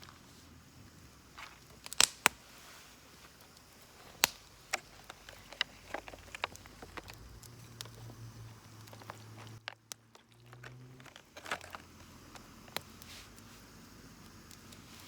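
Wood fire crackling, with irregular sharp pops a second or two apart over a faint background.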